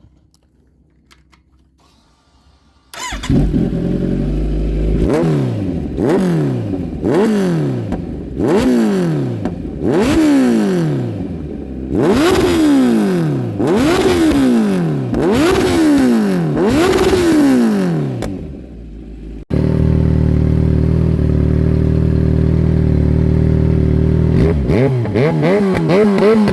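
Kawasaki Z900 inline-four with a loud aftermarket exhaust, coming in suddenly about three seconds in and then revved in a string of throttle blips, each rising quickly and falling back. The engine then holds at steady revs for a few seconds before quick blips start again near the end.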